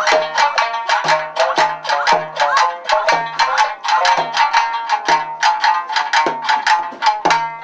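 Traditional Japanese music played on a plucked string instrument: a quick run of sharp plucked notes, about five or six a second, over a lower note that comes back about once a second.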